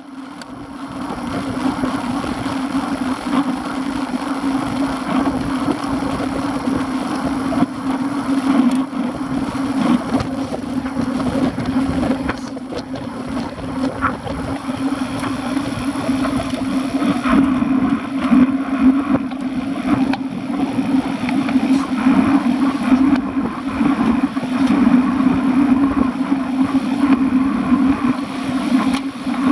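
Wind and road noise on a bike-mounted action camera riding in a group of road cyclists: a loud, steady rush with a constant low drone underneath.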